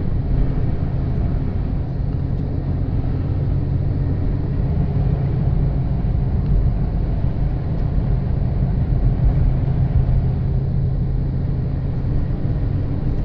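Steady drone of a car's engine and tyres rolling on a snow-covered road, heard from inside the cabin while driving.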